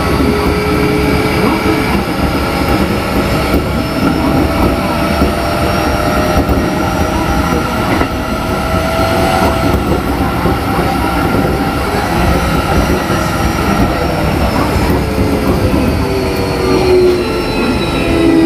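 Keikyu 1500 series electric train running, its Mitsubishi IGBT inverter and traction motors giving several whining tones that slowly rise and fall over the steady rumble of wheels on rail.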